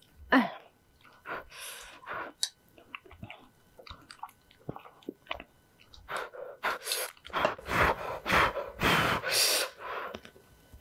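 Close-miked eating of spicy instant ramen: chewing with scattered small mouth noises, then several long, loud slurps of noodles in the second half.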